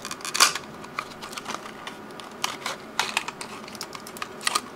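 Small cardboard box being opened by hand and a clear plastic clamshell slid out of it: irregular clicks, taps and scrapes of cardboard and plastic, the loudest about half a second in.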